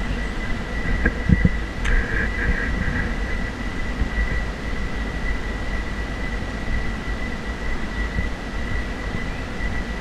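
Low wind rumble buffeting the action-camera microphone, over a steady high-pitched whine from the handheld gimbal's motors.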